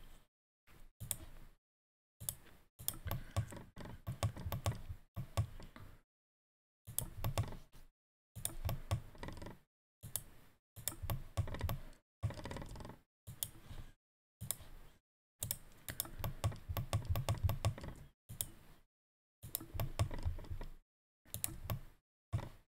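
Computer keyboard and mouse clicking in rapid bursts of a second or more, each separated by short gaps of dead silence.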